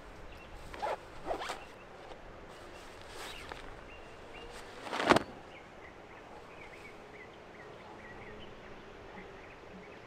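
Handling noise while a drone landing pad is staked down against the wind: a few short rasping strokes in the first second and a half, and one louder sharp stroke about five seconds in.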